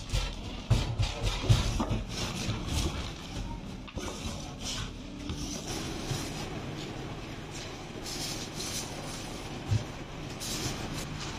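Metal spatula scraping and knocking in a large steel tray as cooked chicken mince and corn are mixed, busiest in the first few seconds, with a single knock near the end. A steady low hum runs underneath.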